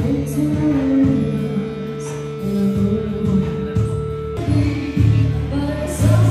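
Live band playing a song: a singer's voice over electric guitar, bass and drums, with a long held note that ends about four seconds in and cymbal strokes about once a second.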